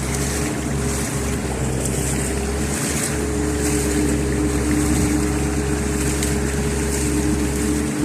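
Heavy rain pouring down, with wind buffeting the microphone and a steady hum in the background that is joined by a second hum about three seconds in.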